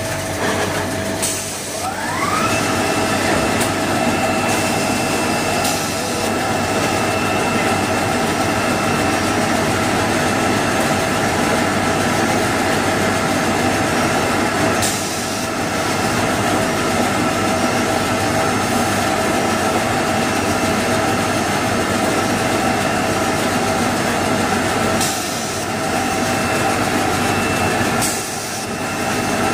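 Automatic band saw log-cutting machine for jumbo toilet paper rolls running steadily. About two seconds in, a motor spins up with a whine that rises in pitch, then holds level over the constant machine noise.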